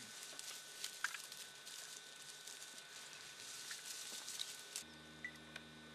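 Dry grass and vegetation rustling and crackling, with scattered small clicks, over a steady hiss. It stops abruptly near the end and leaves a faint low hum.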